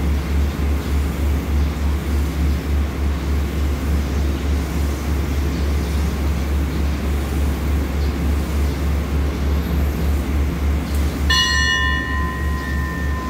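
Standing diesel train's engine idling with a steady low throb. About two seconds before the end a bell is struck once and rings on with a clear tone.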